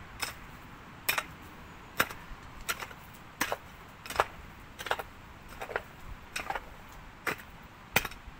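Hand digging: a metal digging tool striking the soil about eleven times, one strike roughly every three-quarters of a second.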